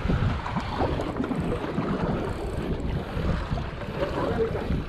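Wind buffeting the microphone, with the sea washing around a small boat in the background.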